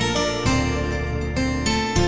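Instrumental intro theme music for a TV programme's title sequence: a run of quick notes over a bass line that shifts about half a second in and again near the end.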